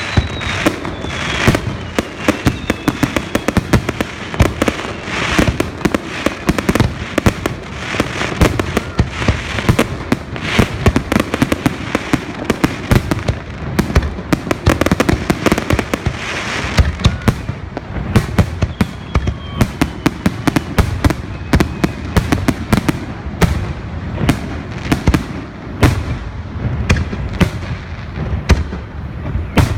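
Fireworks display: a dense barrage of bangs and crackling bursts, several a second, with a thin falling whistle now and then.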